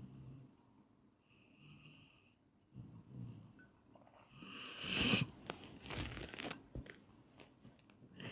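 A person snoring in their sleep, a short rasping breath every second or so. About halfway through comes a louder stretch of rustling and crackling clicks lasting around two seconds, then the snoring resumes.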